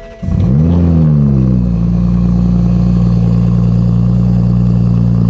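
Cold start of a 2021 Toyota Supra's B58 turbocharged inline-six through an RK titanium exhaust. The engine catches with a rev flare that rises and falls back within about two seconds, then settles into a steady fast cold idle.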